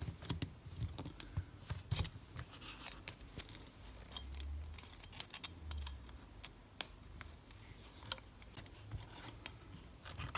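Small, irregular metallic clicks and scrapes as steel piano wire, held with locking pliers, is wriggled down the pinhole of a VW-group ignition lock barrel to push in the barrel's retaining pin. A couple of soft low bumps come in the middle.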